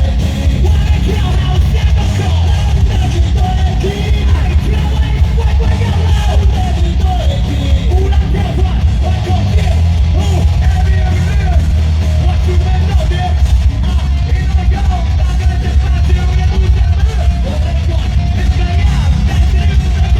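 Loud live heavy metal music: a band playing with heavy bass and drums under yelled vocals.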